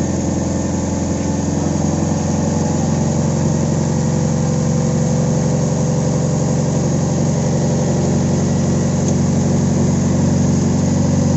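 Carbureted Toyota 4A-FE four-cylinder engine idling steadily after starting. The mechanic says the combustion is not good, a sign the carburetor mixture still needs tuning.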